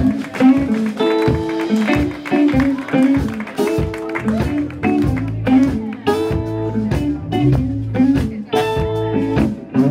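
A live blues band starts playing: electric guitars in a steady rhythmic pattern. A deeper bass part comes in about halfway through.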